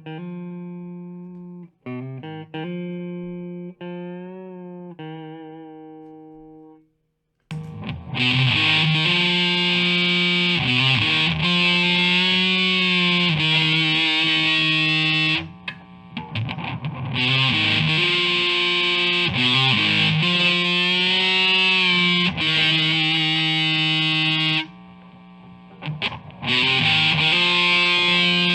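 Squier Classic Vibe Starcaster electric guitar played through an amplifier: first a few chords left ringing and fading away, then from about seven seconds in, loud distorted riffing that stops briefly twice.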